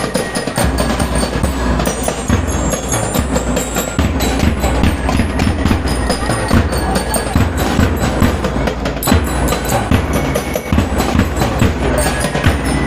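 Drum and lyre band playing: metal bell lyres ringing over snare and bass drums.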